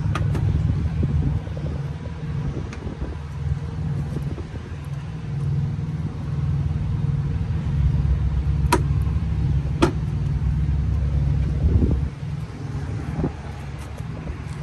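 Low, uneven rumble of vehicle engines, with two sharp clicks about nine and ten seconds in.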